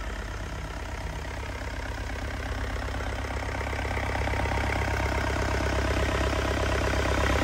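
Yanmar 4TNV98 turbocharged four-cylinder diesel engine running at a steady speed on a test run, even and smooth, growing gradually louder. It is a used engine that its seller calls as quiet as a car, with no blow-by.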